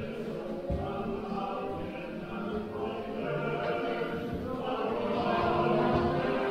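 Choral music: a choir singing long held chords that shift slowly.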